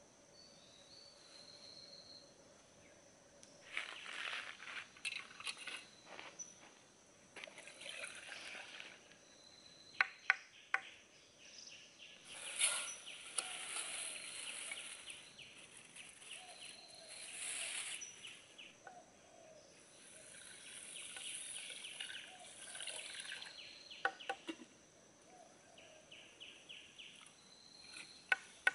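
Forest ambience: a steady high-pitched insect hum, with repeated stretches of rasping, rapidly pulsing noise and a few sharp clicks, the clicks about ten seconds in and again near the end.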